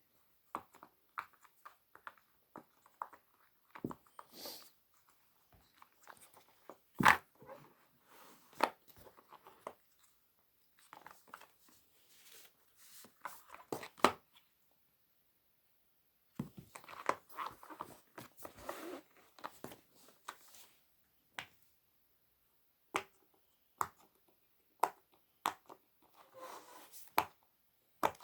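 Pop-it toy being handled and pressed: scattered short pops and clicks, irregular and a few seconds apart, with bits of crinkling and rustling in between.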